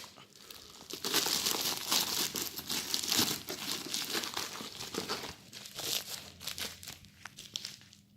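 Packaging crinkling and rustling as a voltage stabilizer is pulled out of its box and unwrapped, in an irregular run of crackles that dies away near the end.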